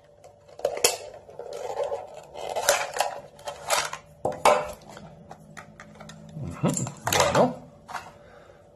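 Hard clear plastic watch case handled and opened, giving a series of sharp clicks and clatters, with plastic wrapping rustling as the watch is drawn out of its sleeve.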